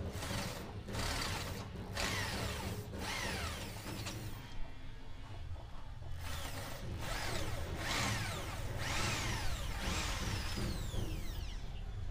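Handheld electric drill boring into a concrete block wall. The motor runs in short bursts and is stopped several times, each stop a whine that falls in pitch as the chuck spins down.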